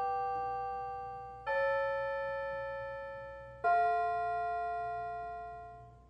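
Piano playing slow, quiet music: new notes struck about a second and a half in and again near four seconds, each left to ring and fade away.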